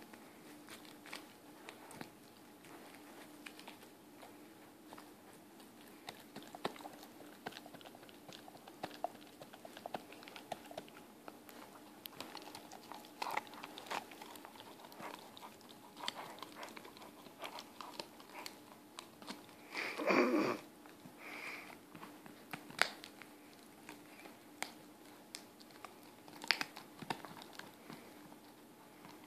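A Weimaraner puppy gnawing and crunching on a chew bone: irregular small crunches, clicks and bites of teeth on the bone throughout, over a faint steady hum. One brief louder sound breaks in about two-thirds of the way through.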